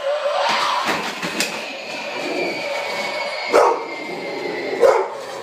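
A dog barking: two sharp barks, about three and a half seconds in and again near the end, over a steady noisy background with a faint high tone.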